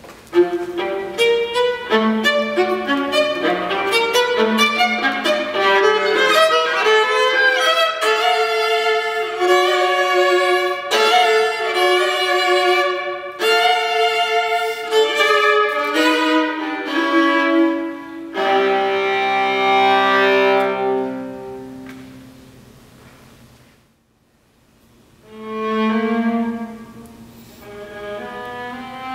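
Solo viola playing an unaccompanied sonata: quick runs of bowed notes for most of the first two-thirds, then longer held notes that die away into a brief pause about three-quarters through, before the playing resumes near the end.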